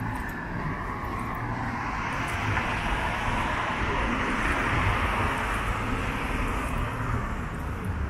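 A vehicle passing by: a rushing noise that builds to a peak about halfway through and fades away near the end, over a constant low rumble of city traffic.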